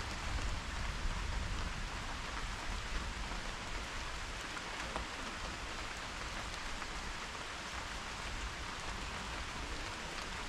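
Steady rain falling on a surface: a dense, even hiss with scattered ticks of individual drops.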